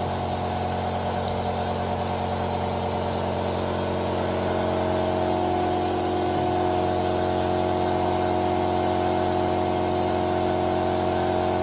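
Air compressor for a finish spray gun running steadily: a continuous hum with several fixed tones and a light hiss, growing a little louder about five seconds in.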